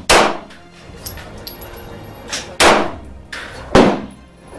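Three sharp bangs, each with a short ringing tail, spaced about a second or more apart.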